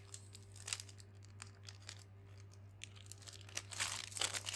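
Packaging wrapper crinkling and rustling as it is handled and pulled open in short crackles, growing busier near the end.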